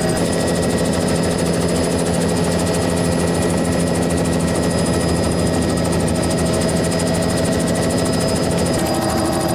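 Helicopter turbine and rotor noise heard from inside the cabin: a loud, steady drone with several constant tones.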